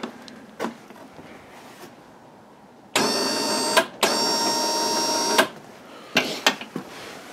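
Newly installed Champion 3000 lb electric ATV winch running in two short bursts about three and four seconds in, the second about a second and a half long, a steady geared whine on its first test run. A sharp click comes about half a second in.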